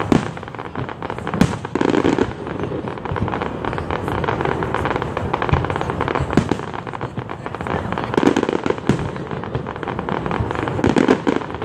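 Aerial fireworks shells bursting in a dense, steady run of bangs and crackles, with louder clusters about two seconds in, around eight seconds and near the end.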